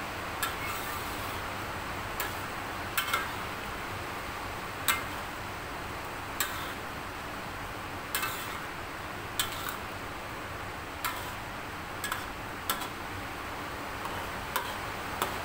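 A spatula knocking and scraping against a metal wok while stirring a coconut-milk curry: about a dozen sharp, irregular clicks, over a steady hiss of rain.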